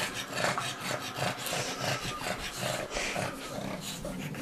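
English bulldog tugging at a sock on a person's foot with its teeth, growling and breathing noisily in quick, irregular pulses.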